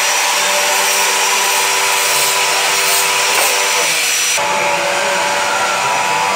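Electric angle grinder running on stainless-steel pipe: a steady motor whine over a loud hiss, changing abruptly about four and a half seconds in.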